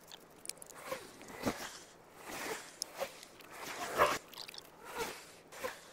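Litter being picked up with a hand-held litter picker and dropped into a plastic bin bag: irregular crinkling and rustling of plastic with short clacks, the loudest about four seconds in.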